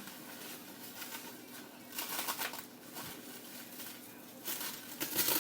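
Plastic wrap crinkling in uneven bursts as a wrapped to-go plate is handled, about two seconds in and again near the end.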